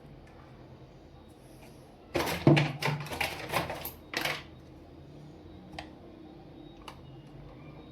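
Small plastic toys being handled: a burst of clattering clicks for about two seconds, starting about two seconds in, then a couple of single clicks.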